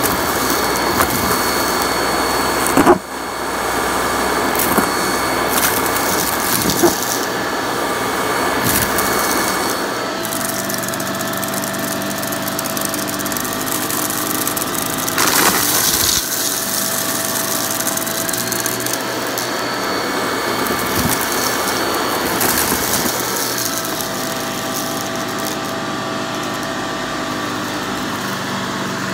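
Upright vacuum cleaners running on carpet, with an abrupt change to a different machine about three seconds in. From about ten seconds in a Shark DuoClean upright runs with a steady motor whine over the rush of suction, with a short louder burst around the middle as it takes in a pile of lint and debris.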